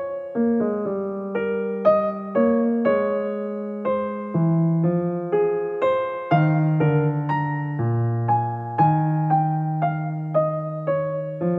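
Gentle background keyboard music: a slow melody of struck notes that fade out, about two a second, over held bass notes.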